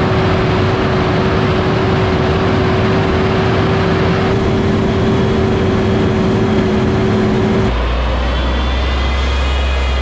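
Terra-Gator 1903 fertilizer spreader running across a field: a steady engine drone with a held tone, heavily mixed with wind rush on the microphone. About three-quarters of the way through the sound changes to a deep, steady low rumble with faint high whining tones.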